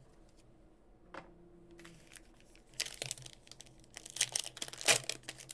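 Foil trading-card pack wrapper being torn open and crinkled by hand. It is quiet at first apart from a single click about a second in, then a quick run of crinkling tears starts about three seconds in.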